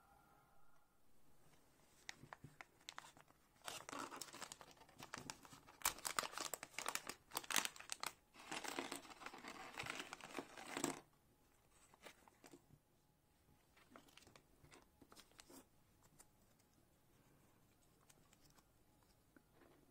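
A plastic packaging bag being crinkled and torn open, in dense crackling bursts for several seconds, then only faint scattered clicks and rustles as the small parts are handled.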